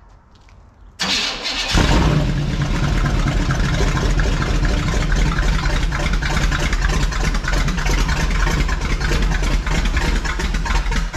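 Freshly rebuilt Buick 455 V8 cranked and firing for the first time for camshaft break-in: it catches within a second of cranking, then runs loud and steady. The sound cuts off suddenly near the end.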